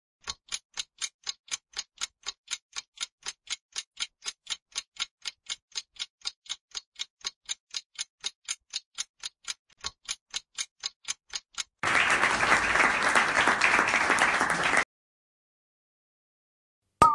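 Countdown-timer sound effect: a clock ticking quickly and evenly, about three and a half ticks a second, for nearly twelve seconds, then about three seconds of applause sound effect as the countdown ends. A short pitched blip right at the end.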